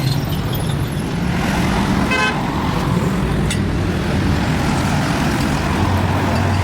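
Steady low rumble of a running motor vehicle engine, with a brief horn toot about two seconds in.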